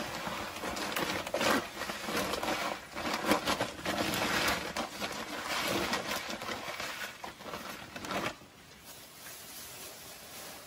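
Thin plastic bag rustling and crinkling as it is handled and passed between hands, in irregular crackles that die down about eight seconds in.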